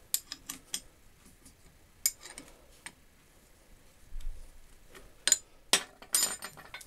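Metal-on-metal clinks and taps as a spanner and washer are worked onto a bolt on a cast-iron hand-lever guillotine shear. A few sharp clinks come in the first second and a dull knock just after the middle, and the loudest cluster of clinks comes near the end.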